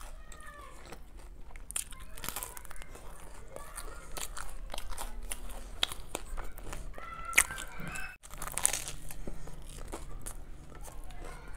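Close-up crunchy biting and chewing of a burger coated in Kurkure corn puffs: a run of crisp crackles and crunches, with a couple of louder crunches about seven and nine seconds in.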